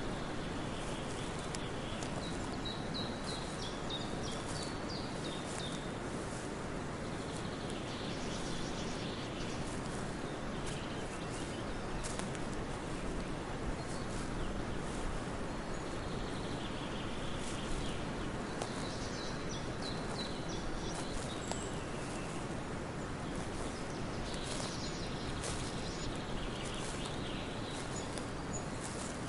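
Forest ambience: a steady rustling hiss, with footsteps crunching along the trail and small birds chirping in short runs every few seconds.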